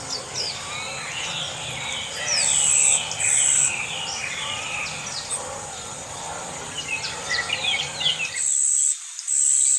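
A chorus of bird chirps, many short falling calls overlapping, with a high insect buzz that comes in four bursts of about half a second each.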